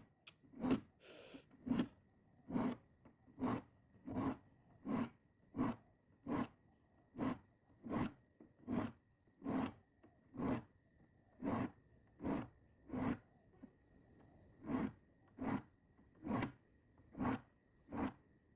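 Diamond file sharpening the teeth of a Gyokucho ryoba Japanese pull saw: short rasping strokes at a steady pace of a little more than one a second, with a brief pause about two-thirds of the way through.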